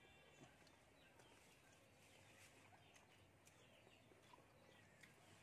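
Near silence: faint outdoor ambience with small birds chirping now and then.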